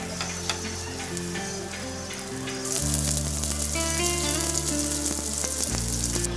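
Shell pasta with egg and vegetables sizzling in a nonstick frying pan as it is stirred, with light spatula clicks. The sizzle grows louder about three seconds in and cuts off suddenly just before the end. Background music plays throughout.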